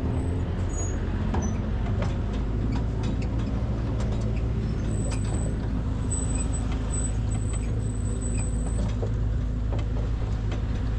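Motor vehicle engine running steadily while under way, with scattered rattles and knocks from the ride.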